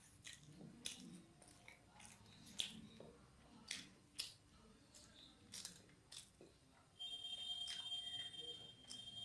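Quiet eating sounds of a person chewing chow mein: scattered sharp mouth clicks and smacks between bites. About seven seconds in, a steady high-pitched tone starts.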